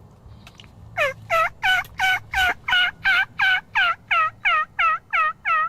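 A turkey call run as a long series of hen turkey yelps: about fourteen loud notes, each dropping in pitch, about three a second, starting about a second in.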